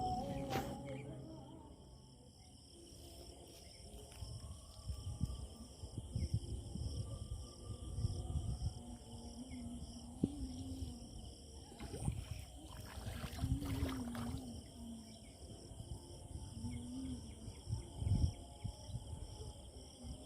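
Insects chirring steadily in a pulsing pattern, with irregular low knocks and rustling handling noises over it.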